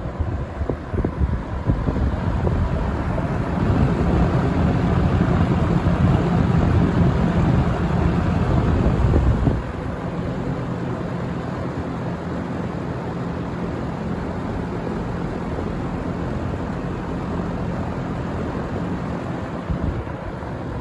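1971 Windsor (Lakewood P-21) box fan running, a steady hollow, bassy rush of air with a low motor hum. The fan's wind buffets the microphone heavily at first, then the buffeting drops off suddenly about nine or ten seconds in.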